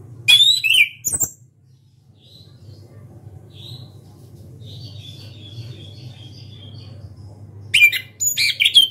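Caged chestnut-capped thrush (anis kembang) singing loudly: a burst of sharp, high, quickly sliding notes near the start, a soft thin warble in the middle, and another run of rapid loud phrases near the end. A steady low hum lies underneath.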